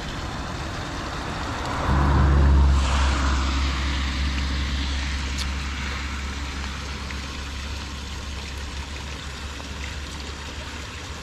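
A car passing on a wet road, its tyres hissing, swelling about two seconds in and then slowly fading away.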